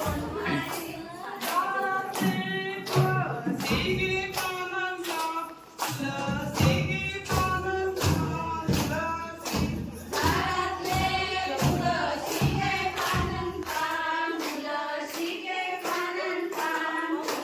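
Group of voices singing a Konkani fugdi folk song together, over a steady beat of sharp strikes, a few per second.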